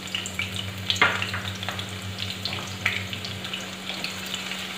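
Freshly added sliced raw onions frying in hot oil in a non-stick wok: a steady sizzle with scattered sharp pops and crackles, the loudest about a second in. A wooden spatula stirs them near the end.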